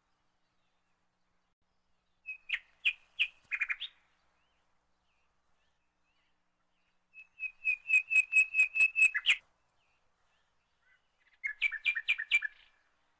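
A songbird chirping in three bouts of quick, evenly repeated notes, the middle bout the longest, with silence between them.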